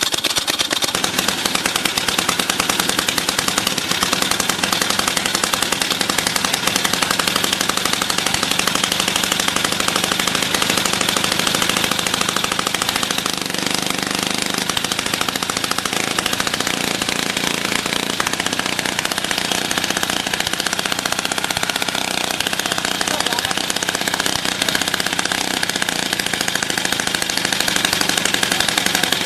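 Two-stroke petrol rock drill running, its piston hammering in a rapid, steady rattle.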